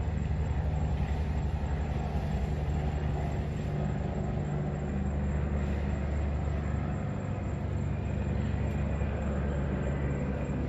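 Steady low drone of an aircraft engine, holding at an even level with no clear rise or fall.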